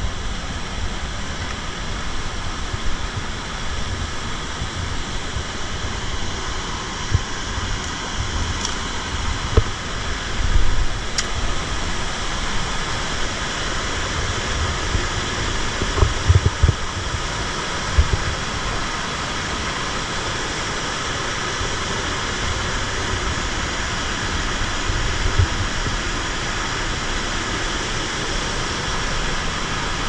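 Waterfall and river rapids rushing steadily, with occasional low thumps on the microphone.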